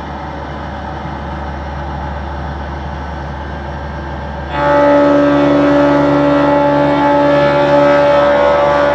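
CNC machine for machining aluminium housings running with a steady mechanical noise and low hum. About halfway through it suddenly gets louder and a steady pitched whine of several tones sets in.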